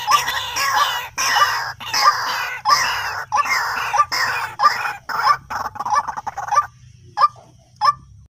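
White-breasted waterhen calling: a run of loud, harsh repeated calls that come faster and faster, then break off about two-thirds of the way through, leaving a few single short notes under a second apart.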